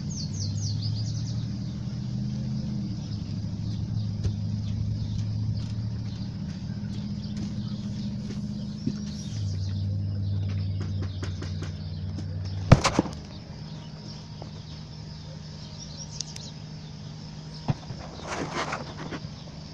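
A steady low motor hum that shifts pitch a couple of times and drops off after a single sharp knock about two-thirds through, with a few bird chirps near the start and near the end.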